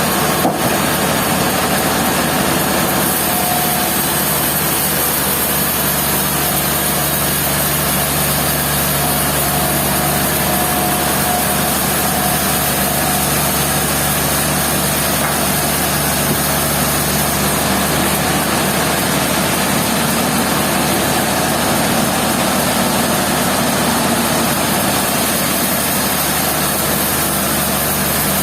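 An engine running steadily at a constant speed, with a dense machinery din over it. There is a brief click about half a second in.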